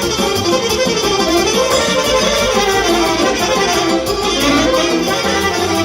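Instrumental break of a Romanian folk-pop song: a melody line winding over a steady beat, with no singing.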